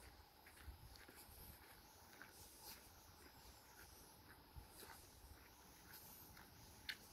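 Near silence with a faint background hiss and scattered faint clicks, one slightly louder click near the end.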